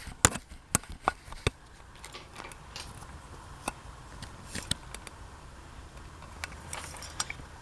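Scattered light clicks and knocks of ceiling fan switch parts being handled during an inspection. Several come close together in the first second and a half, then only a few sparse ones.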